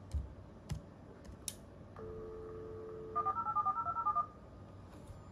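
A few keyboard clicks, then a US Robotics Courier V.Everything 56K modem goes off-hook and plays the line through its speaker: a steady dial tone from the VoIP line for about a second, followed by a quick run of about eleven touch-tone (DTMF) digits as it redials the ISP's number.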